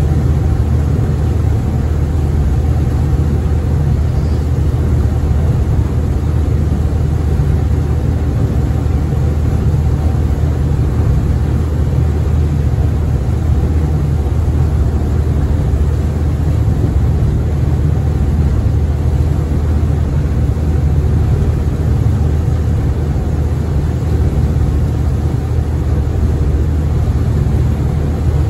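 Diesel engines of the passenger ferry Tsui Wah No. 12 under way, a loud steady low drone that holds unchanged throughout.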